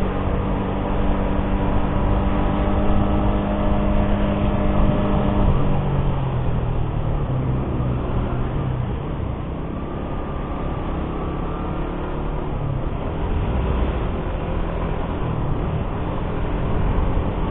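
Suzuki GSX-R150's single-cylinder engine running on the move. Its steady note steps down to a lower pitch about five and a half seconds in, over a constant rushing noise.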